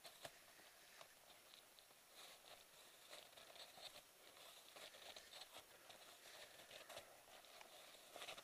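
Very faint, irregular crunching of boots and trekking-pole tips in snow, with scattered soft clicks.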